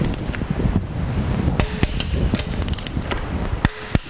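Wrench tightening the oil pump bolts to torque: sharp metallic ratchet clicks, a quick run of them past the middle and a louder single click near the end, over a low handling rumble.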